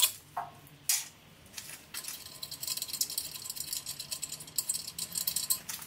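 Metal clinking and rattling of a spanner and exhaust pipe fittings being worked by hand under the car: a couple of sharp clinks in the first second, then quick irregular clicking from about two seconds in.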